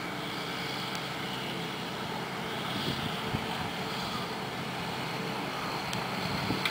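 Heavy truck engine running, a steady drone with no change in pitch.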